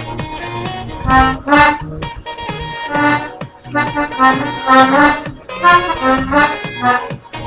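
Small red button accordion squeezed in loud chord swells, several times. A dance-pop song with a steady beat keeps playing under it.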